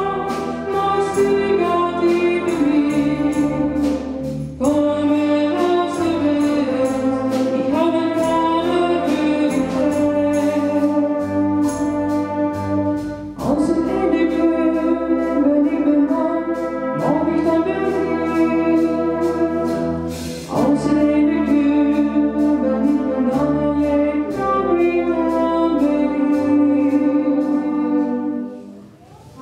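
Live wind and brass band playing sustained chords under a singer's melody in a slow dialect song, in phrases with short breaths between them. The music drops away briefly near the end.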